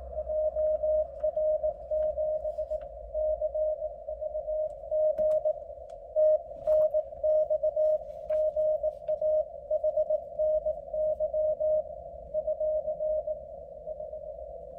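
Morse code from an amateur radio transceiver on the 30 m band: a tone of about 600 Hz keyed on and off in dots and dashes, over a steady band of receiver hiss around the same pitch.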